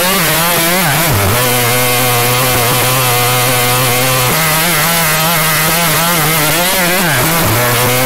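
Plankton's synthesized text-to-speech voice stretching the word "Jr." into a long, loud, harsh buzzing drone, a glitch of the AI voice. The pitch jumps between a few steady levels, with short swoops down about a second in and again about seven seconds in.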